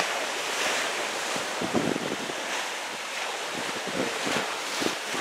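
Small waves breaking and washing up a shingle beach, with wind gusting on the microphone.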